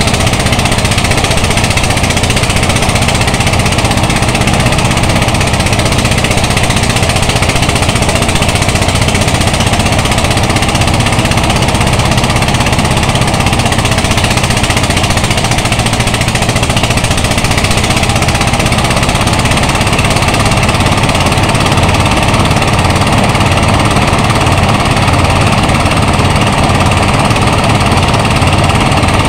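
Engine-driven rice thresher running steadily as rice stalks are fed into its threshing drum. The engine and drum make a loud, unbroken mechanical clatter.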